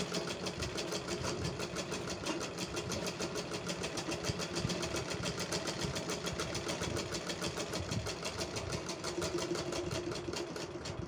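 Punam domestic sewing machine running steadily, its needle stitching a seam in a rapid, even clatter that stops near the end.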